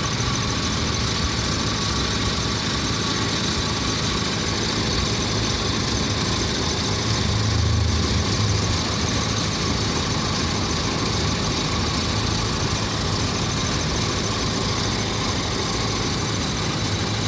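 A vehicle engine idling steadily, with a brief swell in level about eight seconds in.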